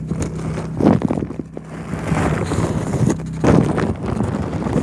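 Handling noise from a phone being moved around: rubbing and scraping on the microphone, with louder scrapes about a second in and again past three seconds, over a steady low hum.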